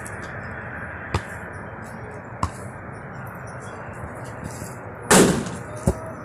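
A basketball bouncing on hard ground, two single sharp smacks more than a second apart, then a louder, noisier thump about five seconds in as the shot hits the hoop, with one more bounce just after.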